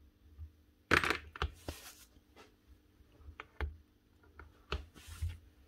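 Hitachi CN16SA nibbler head and its small steel parts being handled while a new punch is fitted: scattered light metallic clicks and taps, with a brief scraping rustle about a second in and another near the end.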